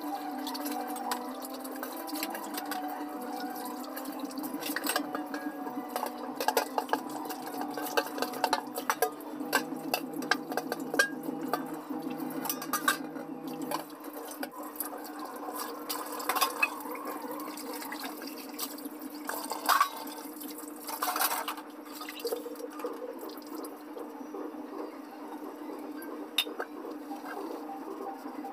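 Dishwashing in a kitchen sink: water running from the tap while stainless steel plates, bowls and tumblers are scrubbed and handled, with frequent clinks and clatters of metal on metal.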